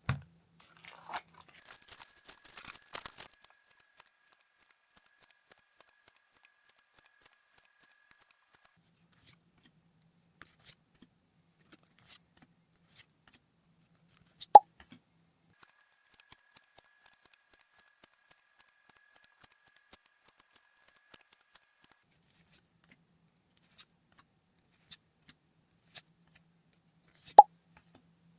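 Trading card booster pack being torn open, a crinkly rustling of the foil wrapper in the first few seconds, then quiet handling of the cards with faint ticks. Two sharp snaps, one about halfway and one near the end, stand out as the loudest sounds.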